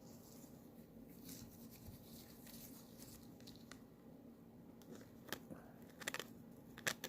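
Faint handling of trading cards and their pack wrapper: soft rustling, with a few sharp clicks and snaps of card stock near the end.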